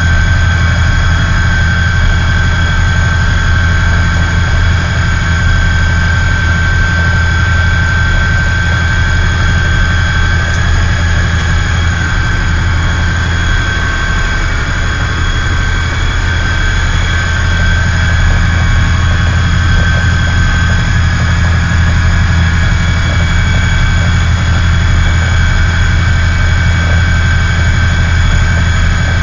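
2TE10M diesel locomotive's two-stroke diesel engine running steadily under way, a deep drone with a steady high-pitched whine over it, heard from inside the cab.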